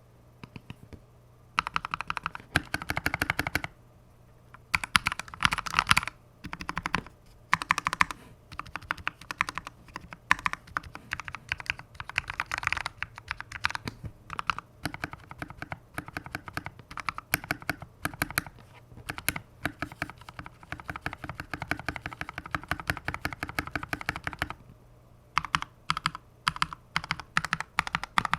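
Typing on a GK64X hot-swap mechanical keyboard with lubed NovelKeys Kailh Cream linear switches, thick PBT keycaps and stabilizers lubed, clipped and band-aid modded. Quick runs of keystrokes start about a second and a half in, with a brief pause near the end followed by separate single key presses.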